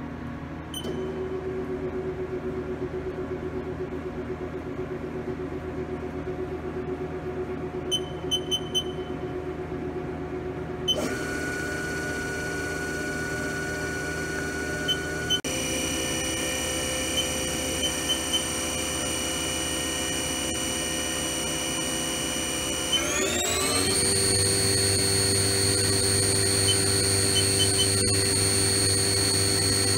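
Haas TM-1 CNC mill's belt-driven vector-drive spindle running at set speeds: a steady motor whine that steps up in pitch about a second in, again around 11 and 15 seconds, then glides up about 23 seconds in to a higher, louder whine. Short electronic beeps from the control panel come in between, a quick triple beep about 8 seconds in.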